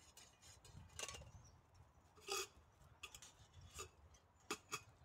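Faint, scattered light clinks and taps of camp tableware being handled: about five separate strikes, the loudest about two seconds in and two in quick succession near the end.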